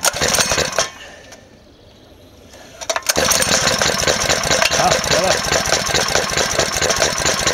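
Small single-cylinder four-stroke engine being pull-started, with a brief burst of cranking and firing in the first second, a lull, then catching at about three seconds and running steadily, fuelled on hydrogen (HHO) alone.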